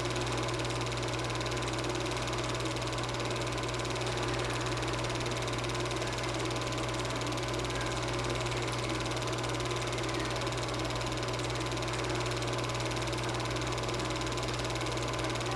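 Super 8 film projector running, a steady even whir and hum with no change in pace.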